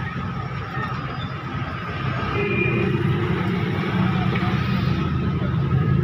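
Steady low rumble of a motor vehicle engine running, growing louder about two seconds in.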